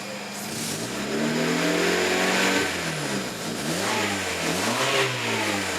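1999 Honda Civic's 1.6-litre four-cylinder engine being revved while it stands: one longer rev that climbs and falls back in the first couple of seconds, then four or five quick blips of the throttle, done to make the newly fitted oxygen sensor swing.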